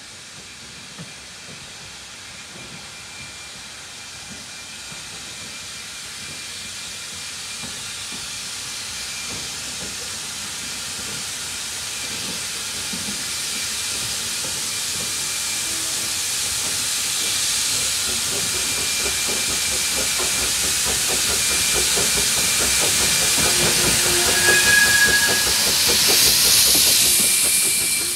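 Bagnall saddle-tank steam locomotive hissing steam and working its exhaust as it propels a brake van train closer, growing steadily louder and loudest near the end as it passes beneath.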